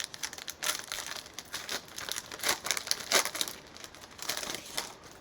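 Plastic cello wrapper of a trading-card pack being torn open and crinkled in the hands: irregular crackling, loudest a little past the middle and dying away near the end.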